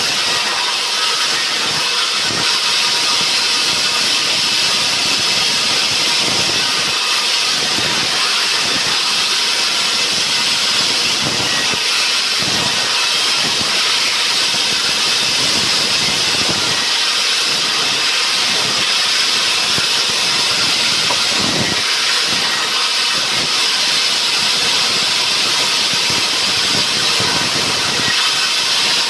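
Sawmill saw cutting a pine log: a loud, steady hiss that runs without a break.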